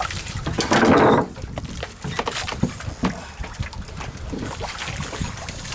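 Noise aboard a small fishing boat at sea. A loud rush comes about a second in, followed by scattered knocks and clicks over a low rumble.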